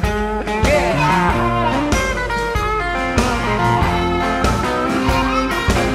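Slow blues instrumental break: a harmonica played through a hand-held mic takes the lead with notes that bend up and down, over a hollow-body archtop guitar strumming the rhythm.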